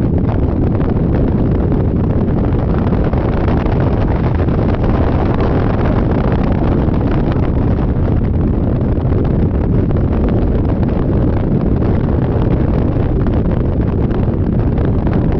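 Steady wind rushing over the microphone of a Yamaha Majesty 400 scooter riding at speed, a dense, unbroken noise heaviest in the low end.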